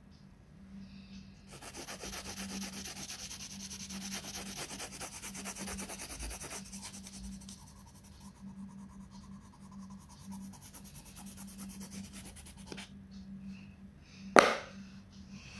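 Brown coloured pencil shading on colouring-book paper: quick back-and-forth scratchy strokes, louder for about five seconds, then softer. A single sharp knock near the end.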